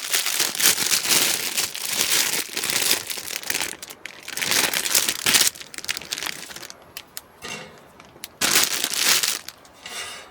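Packaging being crinkled and handled in several rustling bursts, with a few light clicks in between.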